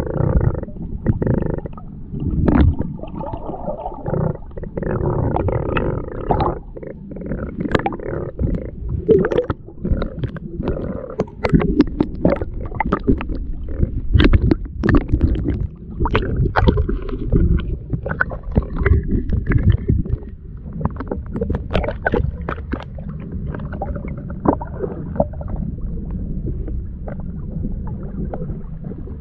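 Muffled rumble and sloshing of sea water heard by a camera held just under the surface in shallow water, with many sharp clicks and knocks through it.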